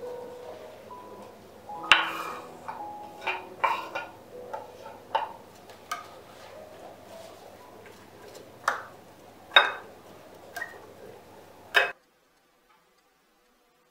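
A string of sharp, irregular taps and clicks, like hard objects being handled and set down, over faint background music. All sound cuts off abruptly about twelve seconds in.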